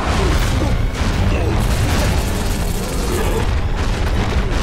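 Cartoon chase sound effects: loud, continuous low booming from a giant ghost dinosaur's stomping footsteps, mixed with other action noise.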